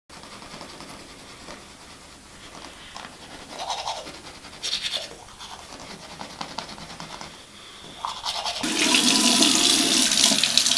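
Teeth being brushed with a toothbrush, faint scratchy strokes with a few louder bursts. About eight and a half seconds in, a tap starts running into the sink, loud and steady, for rinsing.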